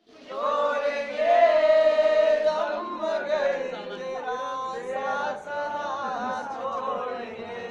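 Young men singing together, unaccompanied, with one long held note about a second in.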